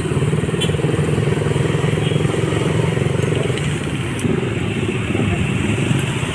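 A motorcycle engine running steadily, with a rapid pulsing firing note. The note's upper part fades out a little past halfway.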